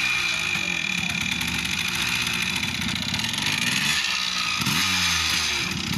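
Yamaha dirt bike's small engine running and revving as the bike pulls away, with a couple of quick rises in pitch about four to five seconds in.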